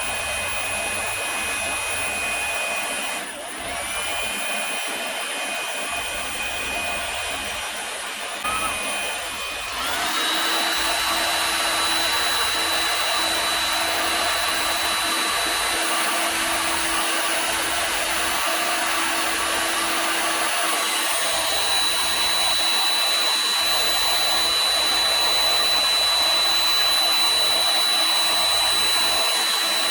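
Hot air gun running, a steady rush of blown air with a high motor whine. The sound dips briefly twice early on, then about a third of the way in the whine rises in pitch and the sound gets a little louder, staying steady after that.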